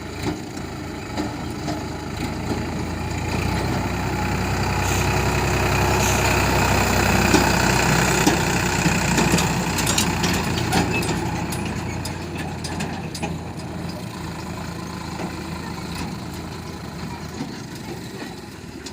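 Heavy diesel engine running with a steady low hum, growing louder towards the middle and then fading away. A few sharp knocks come around the loudest stretch.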